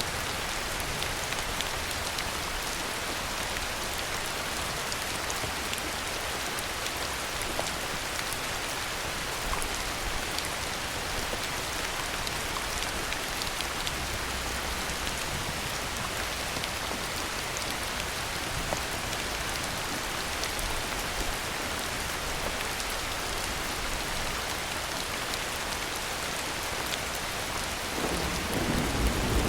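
Heavy rain falling steadily, an even hiss of drops on surfaces. Near the end a low rumble of thunder begins to build.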